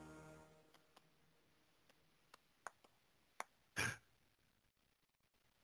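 Near silence: a held music chord fades out at the start, then a few faint, scattered clicks and one short, soft rush of noise about four seconds in.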